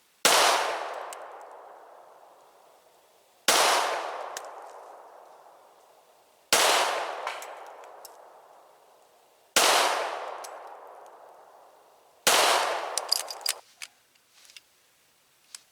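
A .45 caliber 1911 pistol fired five times, about three seconds apart, emptying its last five rounds. Each shot is followed by a long fading echo, and a few faint clicks follow the last shot.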